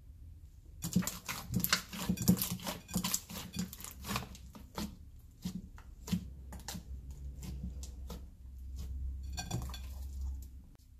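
Fluffy toothpaste slime squeezed and kneaded by hand in a glass bowl: quick wet clicks and pops as trapped air squelches out. The pops start about a second in, come thick and fast, thin out after the middle and bunch up again near the end.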